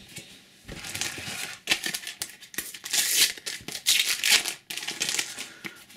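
A Panini sticker packet being torn open by hand and its wrapper crinkled, heard as a run of irregular rustling rips and crackles, loudest about halfway through.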